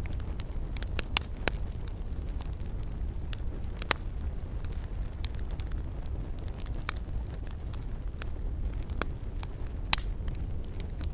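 Fireplace fire crackling: irregular sharp pops and snaps, a few louder ones standing out, over a steady low rumble of the flames.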